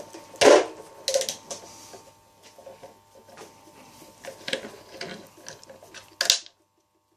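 Scattered metallic clinks and clicks of hand tools being handled, a ratchet wrench and its sockets being swapped. The loudest clank comes about half a second in, and the sound cuts off abruptly near the end.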